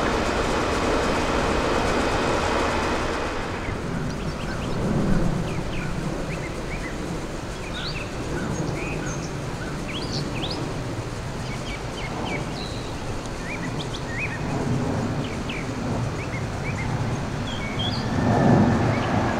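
Jet airliner engines on approach overhead, a dense rumble with a steady whine that cuts off about three and a half seconds in. Then birds chirp over a lower rumble, until a FedEx Boeing 767 freighter's engines grow louder with a steady whine near the end.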